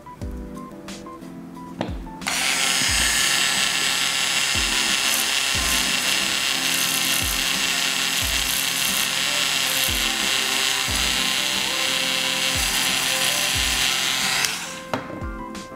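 Small electric rotary tool running at speed, starting about two seconds in and stopping near the end, over background music with a steady beat.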